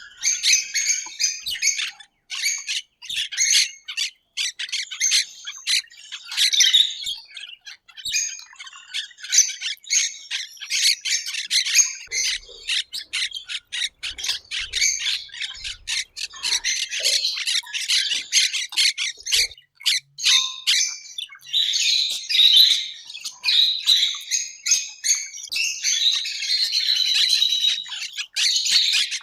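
A flock of parrots and parakeets squawking and chattering: many short, harsh calls overlapping without a break.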